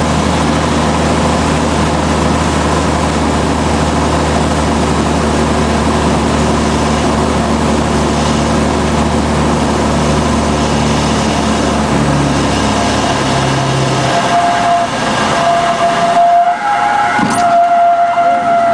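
Cessna 182RG's six-cylinder Lycoming engine and propeller running steadily. The low engine drone falls away about 13 seconds in, and from about 16 seconds a steady high-pitched tone sounds over the remaining noise.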